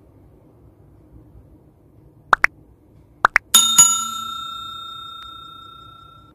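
Subscribe-animation sound effects: two pairs of quick clicks, then a notification bell chime struck twice that rings on, fading slowly over about three seconds.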